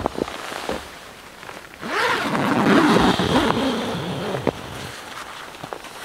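Snow-crusted nylon tent rainfly being pulled back off a dome tent: a few light clicks, then about three seconds of loud crinkling, rustling fabric that fades out.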